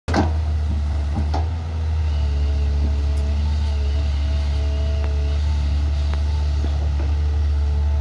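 Crawler excavator's diesel engine running steadily under digging load, a constant low drone with higher tones that shift a little in pitch as the arm and bucket work. A sharp knock sounds right at the start and a lighter one about a second and a half in.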